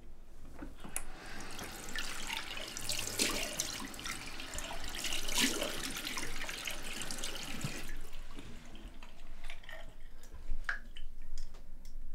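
Bathroom sink tap running into the basin. The tap stops about eight seconds in, followed by scattered drips and small splashes.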